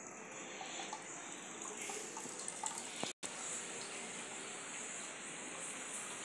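Running water trickling steadily, with the sound cutting out completely for a split second about three seconds in.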